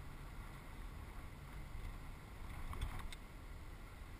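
Steady low rumble of engine and road noise inside a moving van's cabin, with one brief knock a little under three seconds in.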